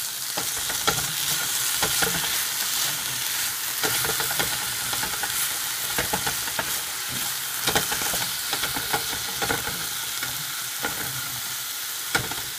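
Sliced zucchini sizzling in a nonstick frying pan while being stirred and turned with a wooden spatula: a steady frying hiss with frequent short scrapes and taps of the spatula against the pan.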